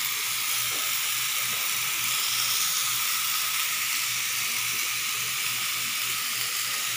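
Raw chicken pieces sizzling on a grill pan over a portable gas stove: a steady hiss.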